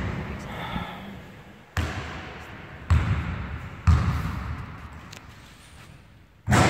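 Basketball bounced three times on a wooden sports-hall floor, about a second apart, each bounce echoing in the hall as the shooter sets up a free throw. A louder hit comes near the end as the shot reaches the basket.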